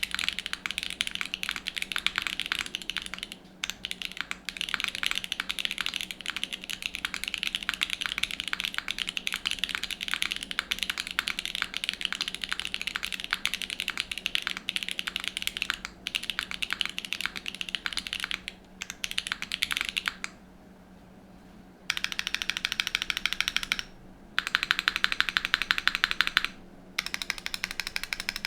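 Typing on a custom mechanical keyboard with an FR4 plate, lubed Loga Chathai switches and GMK Tiramisu keycaps. The keystrokes click in a steady stream, stop briefly past the two-thirds mark, then come back as two very fast, even runs of keystrokes near the end.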